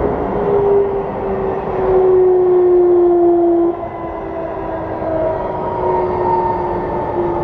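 Running sound inside a Keikyu 1000-series train with its 'Doremifa' inverter drive: steady rumble of wheels and motors under an inverter whine that slowly falls in pitch. The loudest whine cuts off abruptly a little under four seconds in, leaving fainter, higher whining tones over the rumble.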